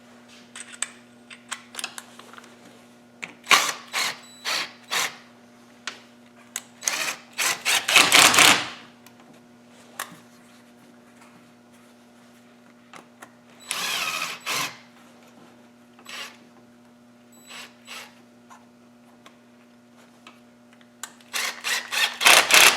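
Cordless drill-driver with a 7 mm socket bit spinning worm-drive hose clips tight on the top hose, run in bursts: a few quick pulses and some longer runs, the loudest about eight seconds in.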